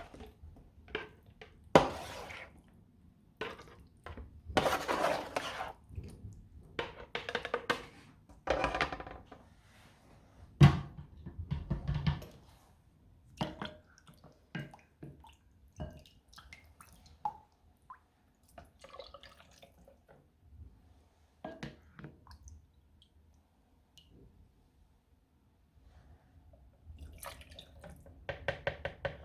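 Intermittent kitchen handling sounds: liquid being poured and dishes and utensils knocking and clinking, in short separate bursts with quiet gaps between.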